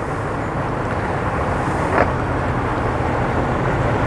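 Small bowrider's engine running under way with its drive trimmed up too high, the propeller churning spray at the surface; the steady engine noise slowly grows louder, with one brief knock about two seconds in.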